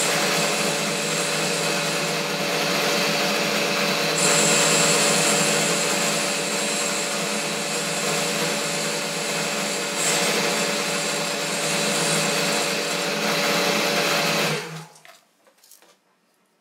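Boxford lathe running while an indexable carbide tool turns down a metal bar, a steady machine whine with a cutting hiss that grows louder and brighter for several seconds in the middle. About fourteen seconds in the lathe is switched off and the sound dies away quickly, leaving a few faint clicks.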